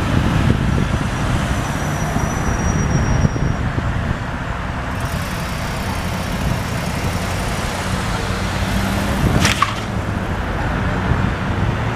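A vehicle engine running, a steady low rumble, under wind noise on the microphone. A short sharp click comes about nine and a half seconds in.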